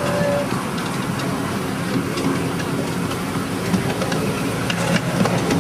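Miniature ride-on railway train running along its track: a steady low hum from the train, with many light irregular clicks from the wheels on the rails.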